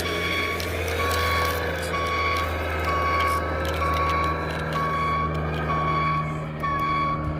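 Reversing alarm beeping about once a second over a steady low engine hum, as a construction vehicle backs up; the beeps stop near the end.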